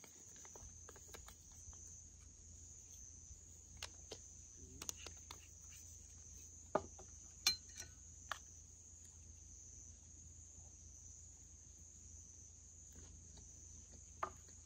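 Crickets chirping as a steady high-pitched trill, with a few short clicks and taps of dishes and chopsticks on the table.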